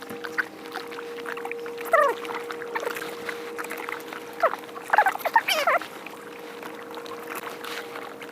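Gulls calling in short, falling, mewing cries, several times, over steady background music.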